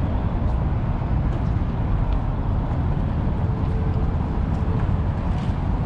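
Outdoor city ambience: a steady low rumble with a hiss above it, with no distinct events.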